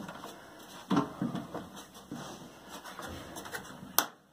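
Scattered clicks and knocks as a washing machine's control panel is worked loose by hand from its sheet-metal frame. A sharp click comes near the end.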